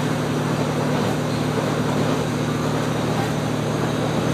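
Cabin sound of a KiHa 47 diesel railcar running at steady speed: an even drone from its diesel engine with a low hum, over the rumble of wheels on the rails.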